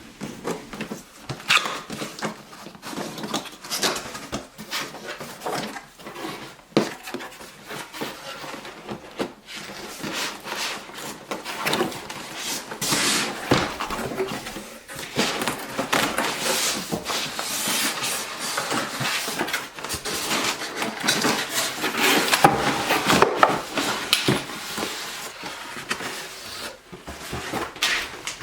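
Hard drives and NAS hardware being handled: irregular clicks, knocks and rustling of plastic and metal parts, with a denser run of clatter in the second half.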